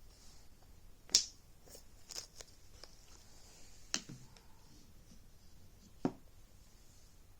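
Handling noise: about four sharp clicks and knocks, a second or two apart, over a faint room hush.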